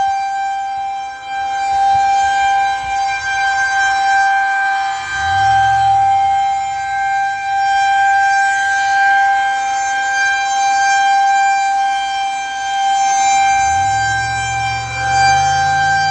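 Federal Signal 2001-130 rotating electromechanical outdoor warning siren sounding a steady tone for a tornado warning, holding one pitch at full speed while its loudness swells and fades as it rotates.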